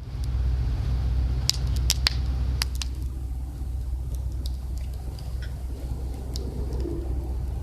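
Wood campfire crackling, with sharp pops every so often, most of them in the first three seconds, over a steady low rumble.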